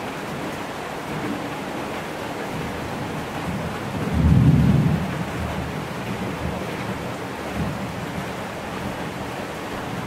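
Steady rain falling, with a brief low rumble of thunder that swells and fades about four seconds in.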